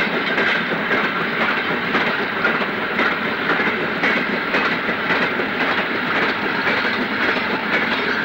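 Steam-hauled freight train of 16-ton mineral wagons passing slowly, the wagon wheels clattering irregularly over the rail joints in a steady rumble.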